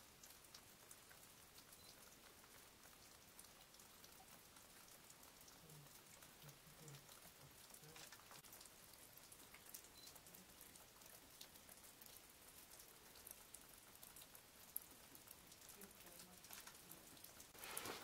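Faint patter of meltwater dripping from the icicles of a frozen waterfall, many small scattered drips.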